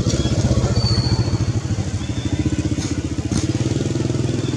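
A small engine running steadily nearby, a low, rapid, even pulsing.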